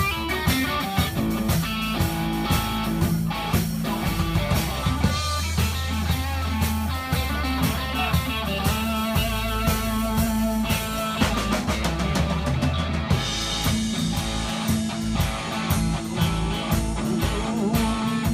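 Rock background music with guitar over a steady drum beat.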